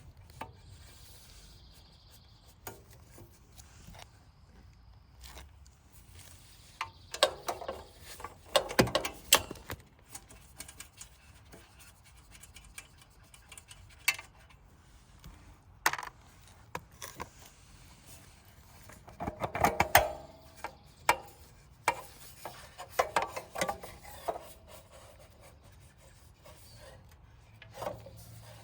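Handling of hand tools and small generator parts: scattered clicks, clinks and scraping, in two busier spells about seven seconds in and again about twenty seconds in.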